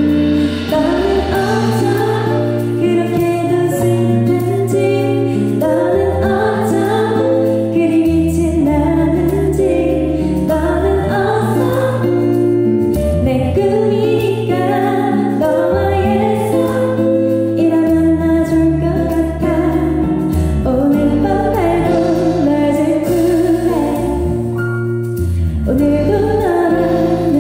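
A woman singing a Korean pop ballad live into a microphone, over instrumental accompaniment with a low bass line moving in held notes.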